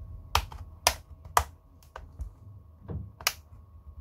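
Sharp plastic clicks from a tablet's back-cover clips snapping loose as a plastic pry tool works along the edge: three quick clicks about half a second apart, fainter ones, then another loud click near the end.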